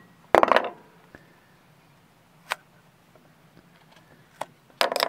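Sharp knocks and clinks of a metal tool and the pieces of a cut-open fuel filter being handled on a wooden board: a loud cluster about half a second in, single ticks in between, and another loud cluster near the end, over a faint steady low hum.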